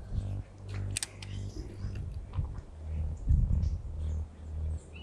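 Fixed-spool spinning reel being worked during a cast and retrieve: a sharp click about a second in, then lighter clicking, over a steady low rumble on the microphone.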